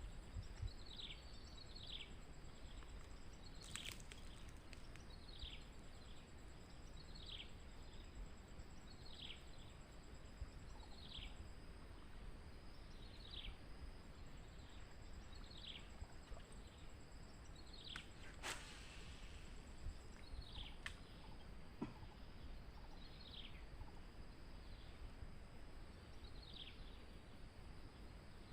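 A bird repeatedly giving a short falling whistle, about one call every couple of seconds and often doubled, over a thin, steady, high insect drone. A few sharp clicks stand out.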